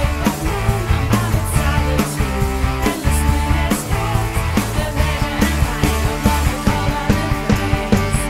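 Prerecorded rock song by a full band, playing loud with a steady, driving beat.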